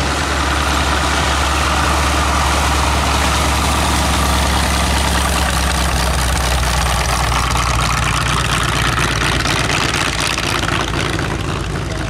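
Hawker Fury ISS's Bristol Centaurus 18-cylinder sleeve-valve radial engine running at low power while the aircraft taxis past, with propeller noise over a deep, steady drone. The sound fades near the end as the aircraft rolls away.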